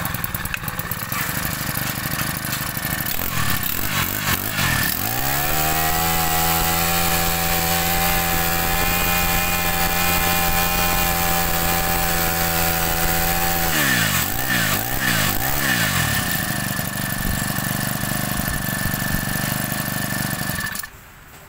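Robin four-stroke brush cutter engine idling, then revved up to full throttle and held steady for about eight seconds. The throttle is blipped a few times before it settles back to idle and stops near the end.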